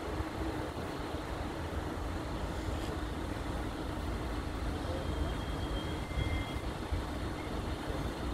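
Steady rumble of road traffic idling at a level crossing with the barriers down, with a faint steady hum throughout and a faint, thin high tone about five seconds in.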